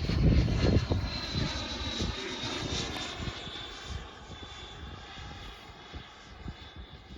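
High whine of a 120 mm electric ducted fan driving a model F-86 Sabre jet in flight, drifting slightly lower in pitch and fading steadily as the model climbs away. Low wind rumble on the microphone is strongest in the first second.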